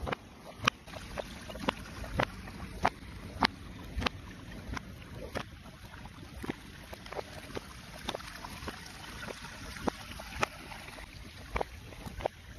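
Footsteps of shoes, played in reverse, at about one every half second to two-thirds of a second for the first few seconds, then more irregular, over a steady hiss of background noise.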